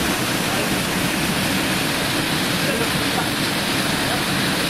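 Small waterfall pouring over rocks into a shallow stream: a steady rushing of water.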